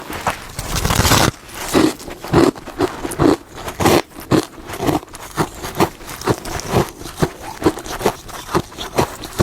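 Close-up crunching and chewing of hard freezer frost, with crisp bites coming about two to three a second and a longer, louder crunch about a second in.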